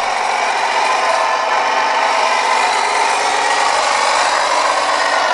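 Custom RC Tonka dump truck driving across the floor, its sound module playing a diesel engine through the speaker under the bed over its electric drive, a steady even drone.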